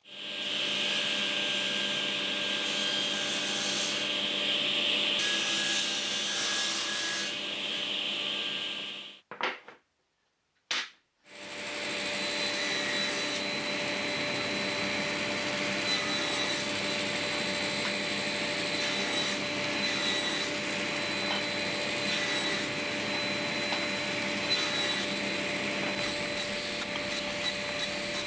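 A steady machine noise with a strong high hiss stops about nine seconds in, likely at an edit. After a short gap a table saw runs steadily with a whine while small wooden segments are crosscut on a sled.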